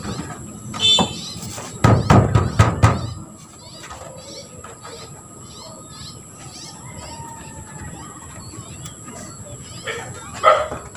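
Hands scuffing and pressing on a rusty corrugated metal roof sheet while smoothing a patch over a hole, loudest about two to three seconds in. After that, a bird chirps over and over in a quick, even series, about two to three chirps a second.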